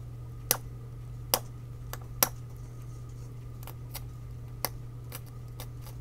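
Razor blade scratching through a copper trace on an HP 42S calculator's circuit board: about ten short, sharp scrapes at irregular intervals, over a steady low hum.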